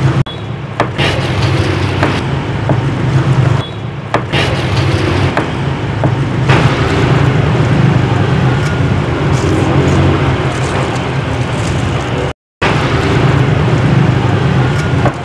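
A motor running steadily, with a low hum under a loud hiss and a few knocks. The sound cuts out for a moment about twelve seconds in.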